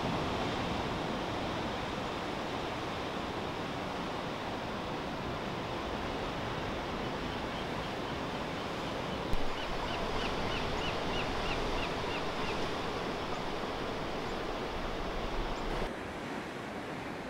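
Ocean surf washing steadily on a beach. About ten seconds in, a bird gives a quick run of short, high chirps, several a second.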